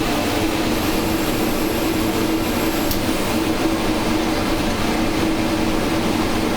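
Steady roar of a large multi-jet glassblowing hand torch flame heating glass on the lathe, with a steady hum underneath.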